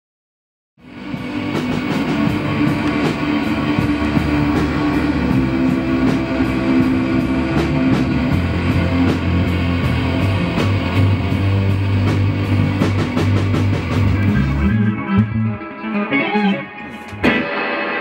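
Small rock band playing live: electric guitar, bass guitar and drum kit, starting about a second in with a steady beat and held bass notes. The full band sound drops away near the end.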